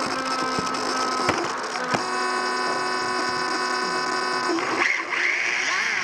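Onboard sound of a Sakura D4 RC drift car: its electric motor and drivetrain whine at a steady pitch, then from about five seconds in the whine rises and falls with the throttle.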